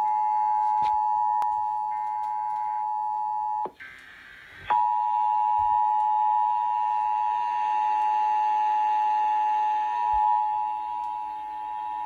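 Emergency Alert System two-tone attention signal (853 and 960 Hz sounded together), a steady, loud dual tone. It breaks off for about a second a few seconds in, then resumes and holds to the end.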